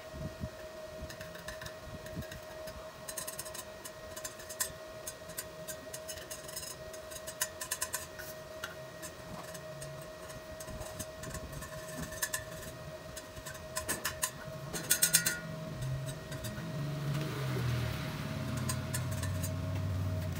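Stick-welding arc on hollow steel tubing crackling in several short spurts, as tack welds, over a steady whine from the inverter welding machine. A low rumble rises near the end.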